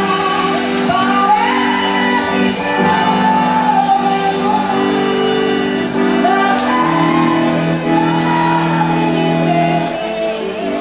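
Festa junina forró music: long held accordion chords with voices singing over them.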